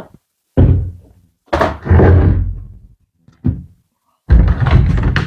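Heavy wooden thuds and knocks from large 8x4 OSB sheets being handled and set down, four impacts in all, two of them drawn out and rumbling.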